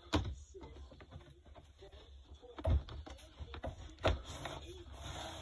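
Handling noise: a few soft knocks, spaced irregularly, with faint rustling between them, as the phone and a plastic snake tub are moved about.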